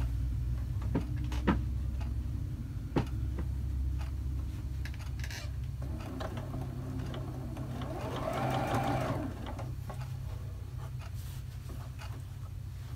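Juki Exceed HZL-F600 domestic sewing machine running steadily, stitching free-motion through a quilt with the feed dogs dropped. It speeds up and then slows again about eight to nine seconds in.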